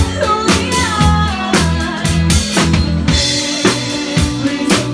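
A live pop-rock band playing with the drum kit well to the fore: bass drum and snare keep a steady beat about twice a second over bass guitar, with a woman singing on top.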